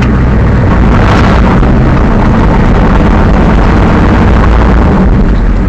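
Monster truck engine running loud and steady while the truck drives along, heard from inside the cab.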